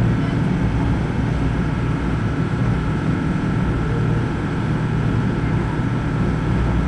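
Motorboat engine running steadily while under way, a low constant drone with water and wind noise over it.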